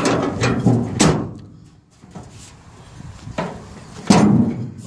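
Loud bangs like a door or metal panel slamming: one about a second in and a louder one about four seconds in.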